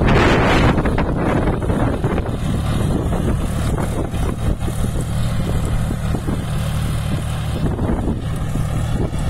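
John Deere 5045 D tractor's three-cylinder diesel engine running steadily under load as it pulls a tillage implement through dry soil, loudest at the start and growing fainter as the tractor moves away.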